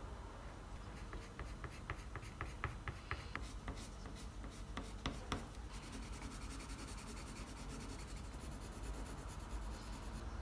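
Ink pen drawing on paper: a run of quick, sharp strokes over the first few seconds, then a steady fine scratching as longer lines are drawn.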